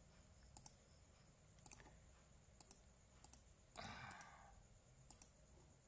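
A handful of faint, separate computer mouse clicks while on-screen pen marks on a slide are erased. There is a short breathy sound about four seconds in.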